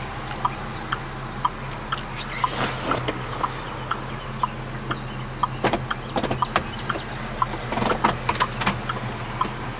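Hazard-light flasher ticking steadily inside the cab of a 2005 GMC Canyon, over the low hum of its Vortec 3500 inline-five idling. A few louder knocks stand out among the ticks.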